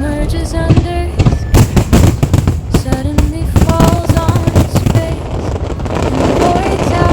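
Aerial fireworks bursting in quick succession, many sharp bangs with a denser crackle toward the end, over a melody played through the show's sound system.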